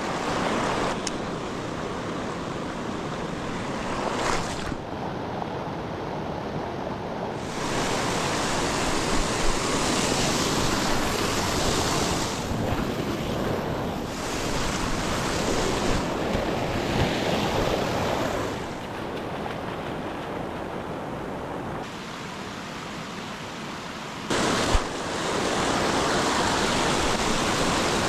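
Mountain stream rushing, a steady hiss whose loudness jumps up and down abruptly several times; a single sharp click near the end.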